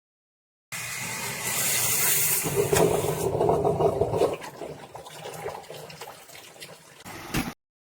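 Water rushing and splashing, loudest for the first few seconds and then easing off, cut off abruptly near the end.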